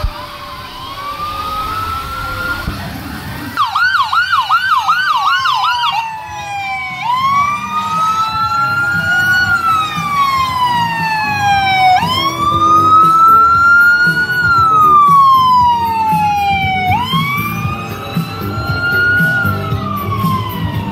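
Fire truck siren, loud and close. It starts on a slow wail, switches about four seconds in to a quick yelp of about two or three cycles a second, and after a couple of seconds returns to a wail rising and falling about every five seconds, over a low rumble.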